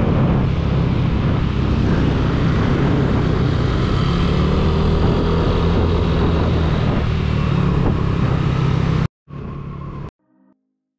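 Motorcycle running steadily on the move, with wind noise over the microphone. It cuts off abruptly about nine seconds in, followed by about a second of quieter sound and then silence.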